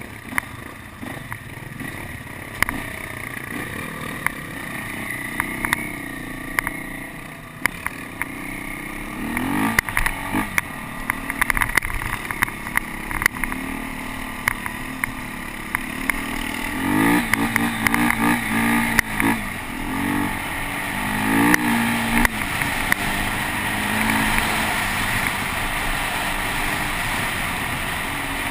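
Beta 250RR enduro motorcycle engine running under the rider on a dirt track, with several rising revs through the gears about two-thirds of the way through. Scattered sharp knocks run throughout.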